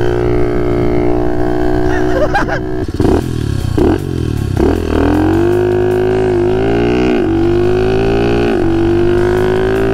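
Pit bike's small single-cylinder engine running under way. It breaks off and picks up again a few times about three to five seconds in, as with quick throttle changes or shifts, then its pitch climbs slowly as it pulls.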